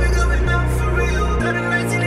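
Hip-hop track with deep, sustained bass notes that shift pitch about half a second and again about a second and a half in, under a wavering melodic line.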